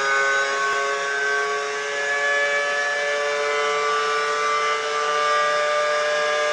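Ferrari F138 Formula One car's 2.4-litre V8 at full throttle, heard from the onboard camera: a high, steady engine note that climbs slowly as the car gathers speed in a high gear.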